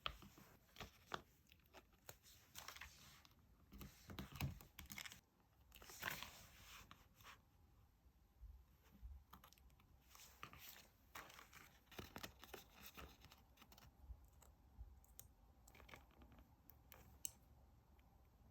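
Paper and stickers being handled while decorating a diary: soft rustling, peeling and scattered light taps and clicks. A few louder tearing or peeling sounds come about four to six seconds in.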